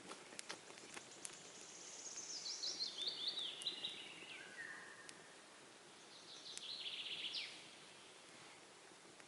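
A songbird sings a phrase of quick notes that steps down in pitch over about three seconds, then sings a second, shorter phrase about six seconds in. There are a few sharp clicks in the first second.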